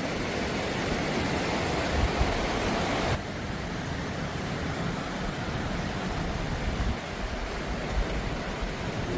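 Steady rushing of a river in flood, its level dropping suddenly about three seconds in.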